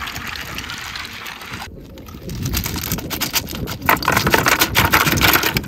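Water swishing as a plastic colander of lightning whelks is rinsed in shallow seawater. Then a quick clatter of many clicks as the whelk shells are tipped from the colander against each other and into a plastic bucket of water.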